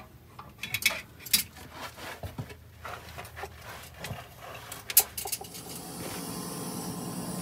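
Scattered light metallic clicks and clinks, with one sharp click about five seconds in; then a steady hissing noise sets in about six seconds in and slowly grows louder.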